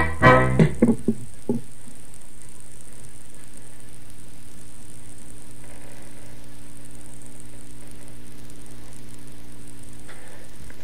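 The last notes of an accordion tune die away in the first second or so, then a steady hum with hiss fills the gap before the next tune.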